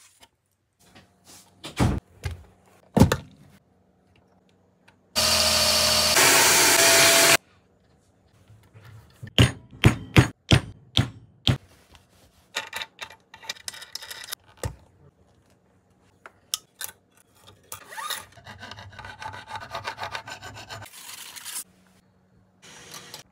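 Workbench sounds on an electric guitar: scattered taps and clicks from handling strings and hardware, and a loud steady noise lasting about two seconds. Later, two spells of a cloth rubbing over the guitar's body.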